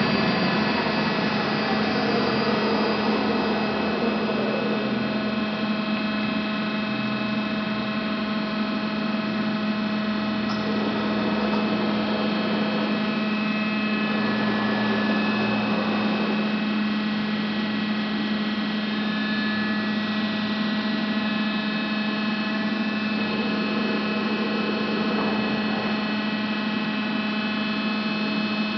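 TOS SUA 125 heavy lathe running, its motors and spindle drive giving a steady electric hum, with a falling whine in the first few seconds as the big four-jaw faceplate chuck changes speed.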